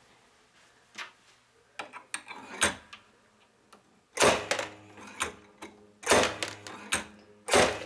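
Homemade murrini chopper's blades snapping through a small glass rod: three loud sharp cracks about two seconds apart in the second half, each followed by a brief ringing. A few light clicks come first as the rod and hinged arm are set.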